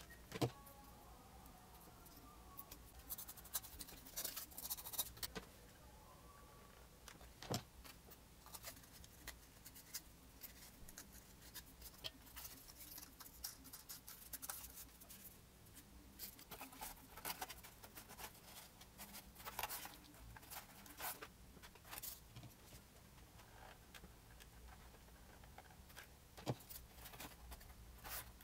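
Scattered small clicks, taps and rustles of hands handling foamboard and cardboard parts, with a sharp click about half a second in and a few more spread through.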